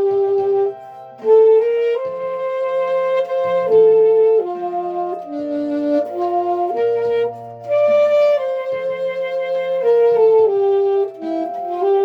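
Saxophone playing a slow gospel melody in long held notes over a backing accompaniment, with a short breath break about a second in.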